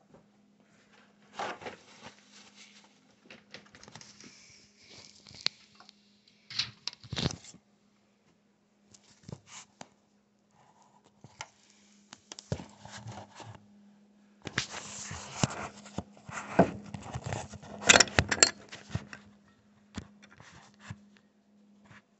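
Handling noises: scattered clicks, knocks, scraping and rustling, busiest from about two-thirds of the way in, over a steady low hum.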